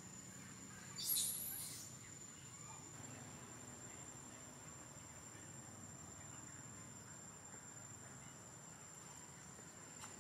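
Steady high-pitched insect buzz on one unbroken tone, with one short shrill call about a second in, the loudest sound.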